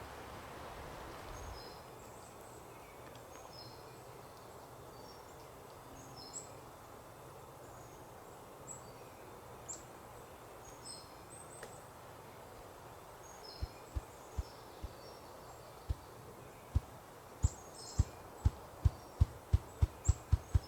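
Ruffed grouse drumming: about two-thirds of the way through, low thumps begin slowly and speed up steadily into a roll. Small birds chirp faintly throughout.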